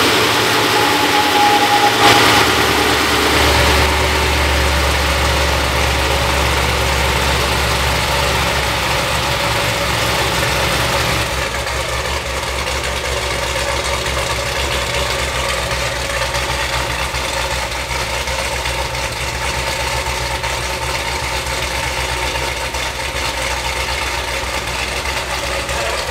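Freshly built 416-cubic-inch LME iron-block V8 in a Cadillac CT5-V Blackwing, running on its first start-up: a brief rev flare about two seconds in, then a steady idle with a deep rumble that settles a little about eleven seconds in.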